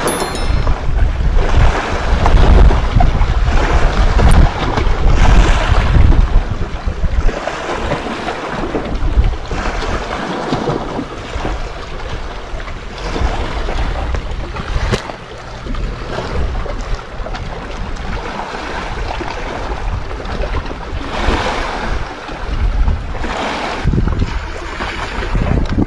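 Wind buffeting the microphone in gusts over sea water washing against a rocky shore. The gusts are strongest in the first several seconds, then ease to a steadier rush.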